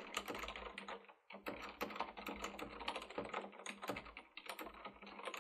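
Typing on a Corsair Strafe RGB mechanical keyboard with Cherry MX Silent linear switches: a quick, dense run of soft, dull keystrokes, pausing briefly about a second in.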